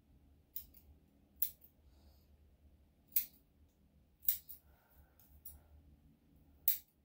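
Grooming scissors snipping fur around a dog's paw: about seven crisp, sharp snips at irregular intervals.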